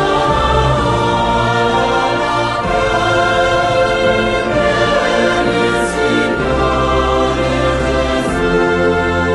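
Choral music: a choir singing held chords, with a low sustained bass underneath.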